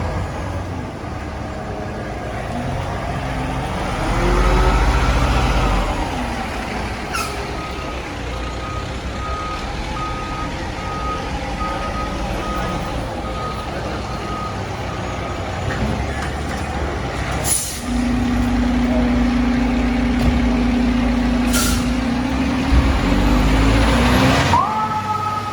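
Fire truck with its engine running. Air brakes hiss sharply three times, and a reversing beeper sounds about once a second for several seconds. A steady low hum follows, and a siren starts up near the end.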